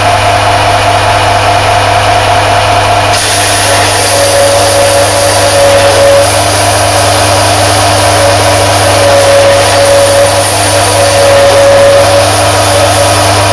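Gas forge burner running: a loud, steady roar with a constant low hum, its hiss growing brighter about three seconds in.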